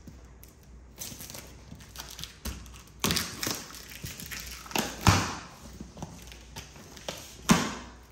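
Cardboard mattress box being handled and unpacked: a run of separate thumps and scuffs. The loudest comes about five seconds in, with another sharp one near the end.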